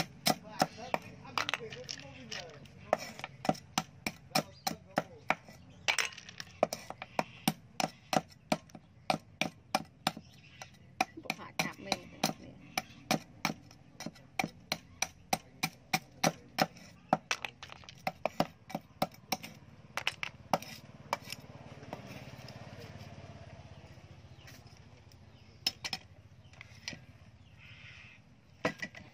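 Kitchen knife chopping down onto a wooden chopping block, cutting the tips off snail shells, with sharp knocks about two a second. The strokes thin out after about twenty seconds.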